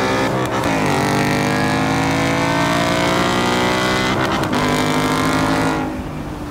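Ford Mustang GT's 5.0 V8 at full throttle in a roll race, climbing in pitch through the gears with two quick shifts, about half a second in and about four seconds in. It backs off near the end.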